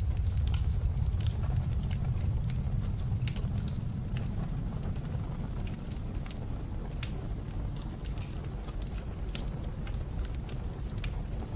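Wood fire crackling with scattered sharp pops over a steady low rumble of blizzard wind.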